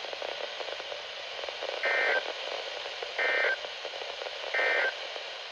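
Emergency Alert System end-of-message signal received over radio: three short, identical bursts of warbling two-tone data about a second apart, marking the end of the alert. A steady static hiss runs underneath.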